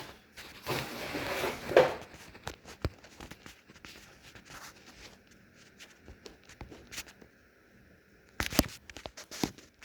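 Packaging being handled: a burst of rustling for the first couple of seconds, then scattered clicks and knocks, with two sharper clicks near the end.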